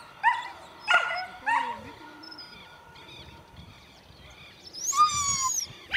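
Greyhounds yelping and barking in short high yips, three clear ones in the first two seconds, then a longer high whining cry near the end.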